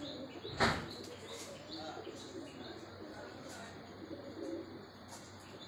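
Domestic pigeons cooing, with short high chirps. A single sharp knock about half a second in.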